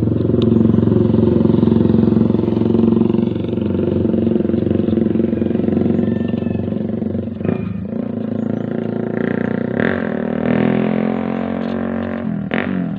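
An engine running steadily, its pitch shifting up and down a little around the middle and again near the end. A few light clicks of the plastic charger-socket parts being handled sound over it.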